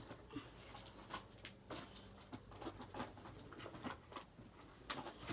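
Faint scattered clicks and soft rustles, a few small handling noises each second, with no clear rhythm.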